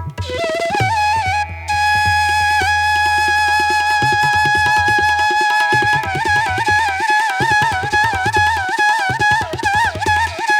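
Background music of Indian traditional style: a flute melody of long, wavering, ornamented notes over tabla drumming.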